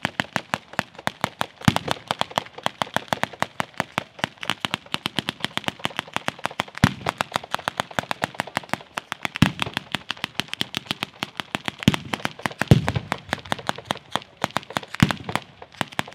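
Ground firework battery (Italian batteria) firing: a steady, rapid run of firecracker cracks, about six a second, with heavier deep bangs every few seconds.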